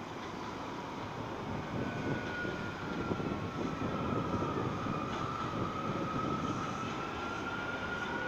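Subway train approaching along elevated track: a rumble that grows louder, with a high whine coming in about two seconds in that dips slightly and then rises.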